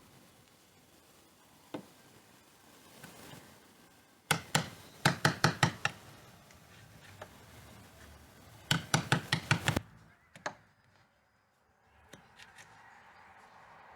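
Wood chisel being struck with quick, sharp blows, cutting out a mortise in a wooden door jamb for a strike plate. There are two rapid runs of about eight blows each, and single knocks before and after.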